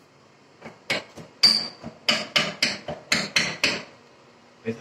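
Quick run of about a dozen knocks, about four a second, on a stone backsplash slab as it is pressed and seated against the wall. The knocks stop shortly before the end.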